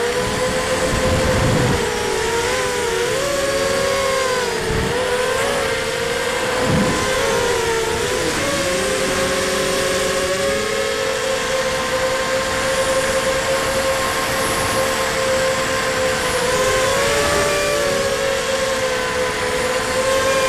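Brushless motors and 5-inch props of a ZMR250 racing quadcopter, heard from its onboard camera: a continuous buzzing whine of several close tones that dip and bend apart several times as the throttle changes and hold steady in between, over a constant rush of air.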